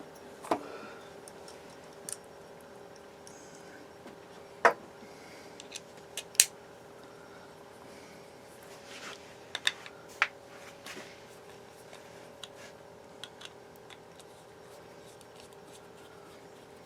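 Scattered small, sharp metallic clicks and taps from a screwdriver and pocketknife parts being handled during disassembly, over a steady low hum of room tone.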